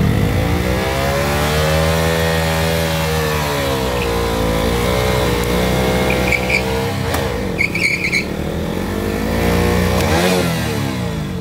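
KTM RC 200 sport bike's single-cylinder engine revved hard on the spot for a burnout, its revs swelling up and falling back several times. Two short high chirps come a little past halfway.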